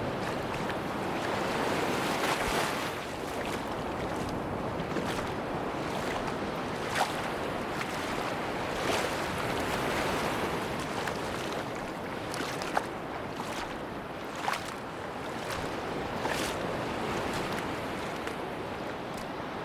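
Ocean waves washing on a beach, a steady surf wash that swells and eases, with a few short sharp clicks at uneven intervals.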